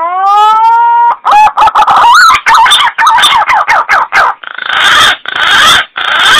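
Green pigeon (punai) calls played loud as a hunting lure: a long rising note, then a run of short wavering whistles, ending in three harsh rasping calls.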